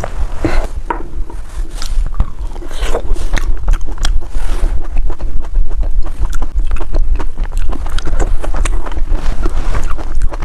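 Close-up chewing of crispy dry ice cream: a dense run of irregular crunches and clicks, over a steady low hum.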